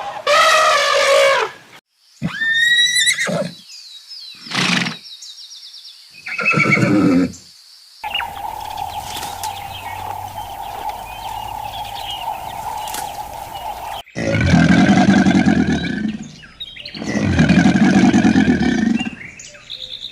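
A string of separate animal calls edited back to back, led by horses whinnying: a falling whinny, then higher rising and falling neighs and short calls. A steady drone follows for several seconds, and two long, low, loud calls come near the end.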